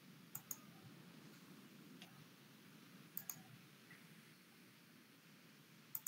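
Computer mouse clicks: three double clicks, each a press and its release close together, about three seconds apart. There is a fainter tick between the first two, against near-silent room tone.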